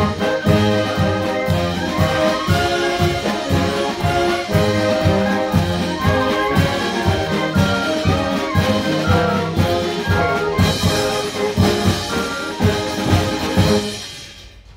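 Concert band of brass and woodwinds, tuba, trumpets and clarinets among them, playing a piece over a steady beat, which ends near the end.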